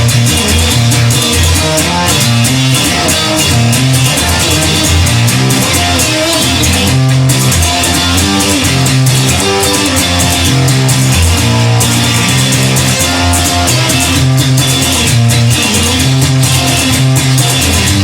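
Instrumental rock music with guitar, bass guitar and a drum kit playing continuously, with no vocals.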